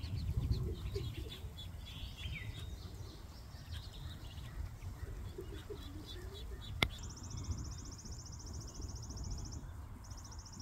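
Muscovy ducklings peeping in short, high chirps, mostly in the first half, over a steady low rumble. A single sharp click comes about seven seconds in, followed by a fast, very high rattling trill twice near the end.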